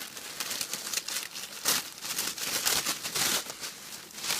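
Packaging being opened by hand, crinkling and rustling in irregular bursts, louder about a third of the way in and again near the end.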